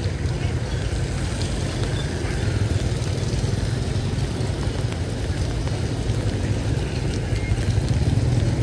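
Steady low rumble of motorbike traffic with an even hiss over it, on rain-wet streets.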